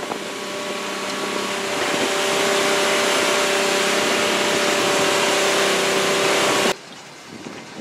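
Motorboat under way at speed: heavy wind rushing over the microphone with a steady engine drone beneath it. The noise grows louder over the first two seconds, then cuts off suddenly near the end, leaving a much quieter wash of wind and water.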